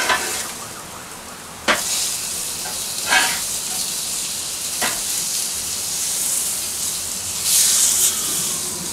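Steaks sizzling on a hot grill while a metal spatula is scraped under them and they are flipped, its edge clicking sharply against the grill bars several times. Near the end the sizzle swells loudly as a freshly turned steak is pressed down onto the hot grates.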